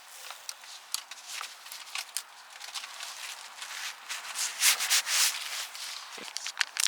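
Hands rubbing and scraping on bicycle parts as they are handled and fitted: a run of short scratchy noises, getting louder in the last couple of seconds.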